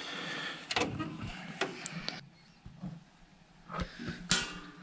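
A graphics card being handled and pushed into a PC case, with plastic and metal scraping for the first couple of seconds. Several light sharp knocks follow as the card bumps against the case and slot.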